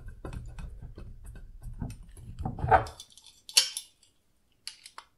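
A screwdriver and plastic model-kit parts being handled: faint clicks and scrapes over a low rumble for about three seconds, then a few short, sharp plastic clicks, the loudest about three and a half seconds in.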